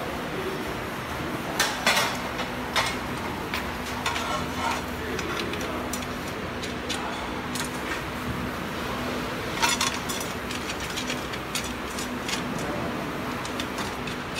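Stainless steel plates and frame parts clinking and knocking as they are handled and fitted onto a conveyor frame: scattered sharp metal clanks, loudest about two seconds in and again near ten seconds, over a steady low hum.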